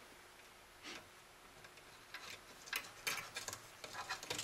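Faint, scattered clicks and light scrapes of a small metal hand tool against the solder terminals and metal chassis of a vintage tube receiver, as a stubborn old component lead is worked loose. The clicks come singly at first, then in quick clusters over the second half.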